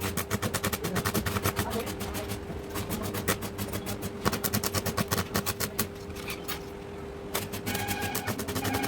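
Electric arc welding on a steel frame: the arc crackles and pops in a rapid, irregular stream, easing off for about a second partway through, over a steady hum.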